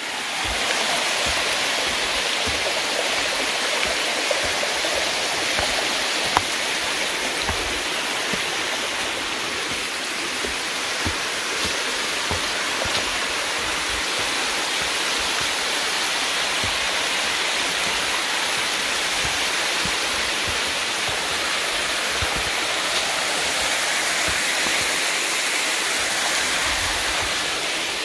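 Small stream cascading down a sloping rock face: a steady rush of water that swells up sharply just after the start and then holds even.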